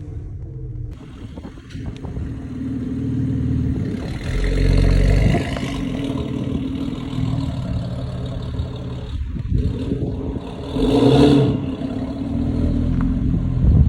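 BMW X3 M's twin-turbo straight-six, open through race downpipes and an OPF by-pass on a Bootmod3 stage 2 tune, running and revving, with two louder surges about four seconds in and near the end. A few sharp pops in between are the burbles and crackles that the tune is set to make.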